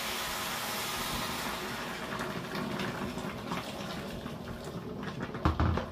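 Water poured from an electric kettle into an enamelled cast-iron cocotte of vegetables. It makes a steady gushing pour that is strongest at first and then eases off, with a couple of knocks near the end.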